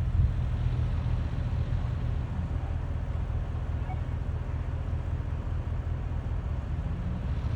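Vehicle engine running steadily under load, with a low rumble from the motor and drivetrain as the vehicle drives over snow.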